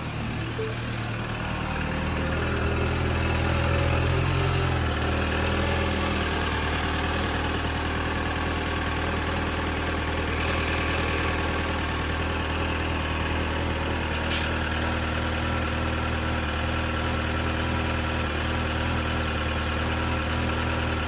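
Mini Cooper R56's N12 1.6-litre four-cylinder engine idling steadily after a cold start, its idle settling slightly lower about five seconds in. The owner takes the cold-engine knock for piston slap.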